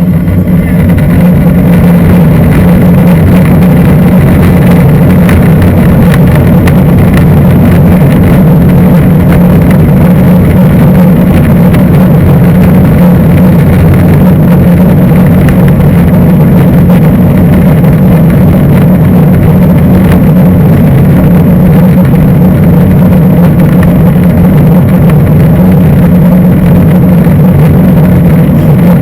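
Boeing 747-400's Rolls-Royce RB211 turbofan engines at take-off power, heard from a rear seat in the cabin as a loud, steady roar with a deep hum. It builds over the first second and then holds level.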